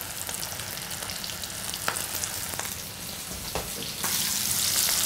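Battered shrimp frying in hot oil in a stainless steel skillet: a steady crackling sizzle with a few light clicks, which gets louder about four seconds in.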